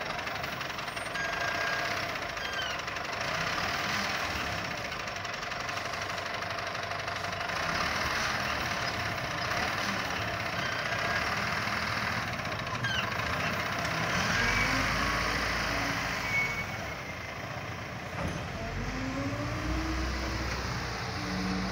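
Caterpillar 950B wheel loader's diesel engine running as the loader works sand into a dump truck. Its pitch rises and falls as the engine revs up and drops back, most plainly in the second half.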